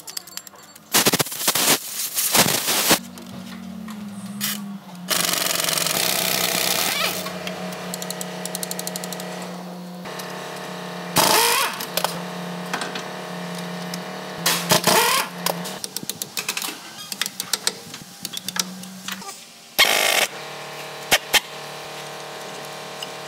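Impact wrench rattling in several short bursts, the longest about two seconds, loosening the bolts on a loader's wheel hub. A steady low hum runs underneath.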